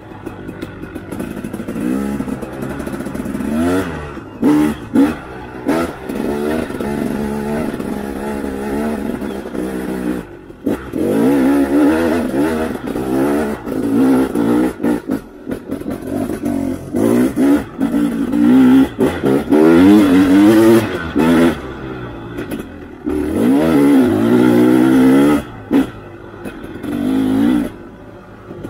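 Dirt bike engine being ridden hard on a trail, its pitch repeatedly rising and falling as the throttle is opened and shut, with several short breaks where it drops away.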